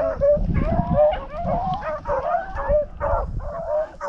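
A pack of rabbit hounds baying as they run a rabbit's track: many short, overlapping yelping cries that go on without a break.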